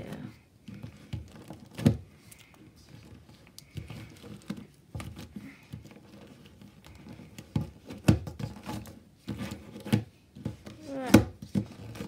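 3x3 Rubik's cube being pushed and turned on a wooden table with two fingers: irregular clicks and knocks of the turning layers and the cube tapping the tabletop, with louder knocks about two seconds in, around eight seconds and near the end.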